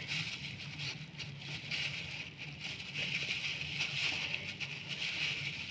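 Faint rustling of dry breadcrumbs as marinated fish strips are pressed and turned in them by hand, over a steady background hum and hiss.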